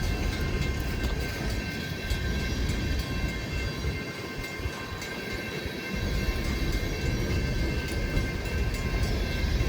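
Empty coal hopper cars rolling slowly past on the rails, a steady rolling noise with a low rumble that eases about four seconds in and returns about two seconds later.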